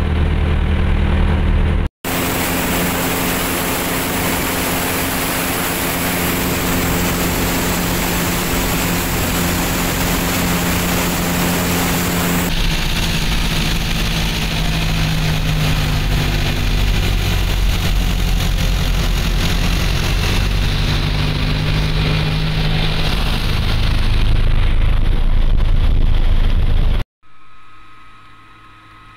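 Vans RV-7's piston engine and propeller running steadily at low power, heard from inside the cockpit. Near the end the engine sound stops abruptly, leaving a faint steady hum.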